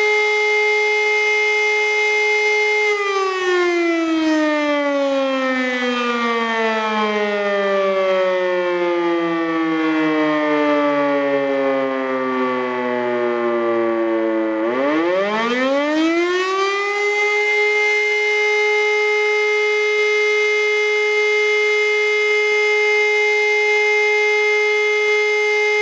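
E57 electric motor siren sounding the Feueralarm signal, loud, with its rotor turning backwards because the three-phase supply is wired with the wrong phase rotation. The steady tone slowly winds down in pitch over about twelve seconds as the motor is switched off, then quickly winds back up to full pitch, holds, and begins to fall again at the very end.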